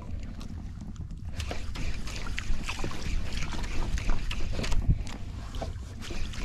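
Water lapping and splashing against a small outrigger boat, with a low wind rumble on the microphone and scattered light ticks and splashes.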